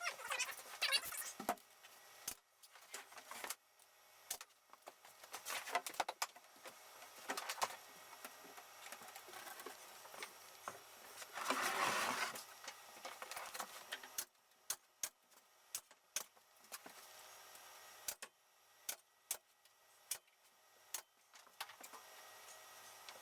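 Workshop handling noises: scattered clicks and knocks of wood and tools, with a few short bursts of a small power tool, the longest about halfway through.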